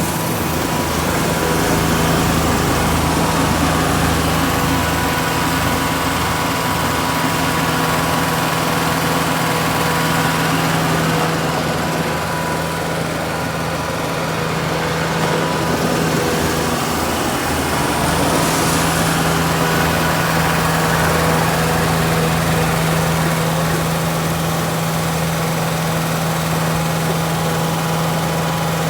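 Farm tractor engine running steadily at an even speed.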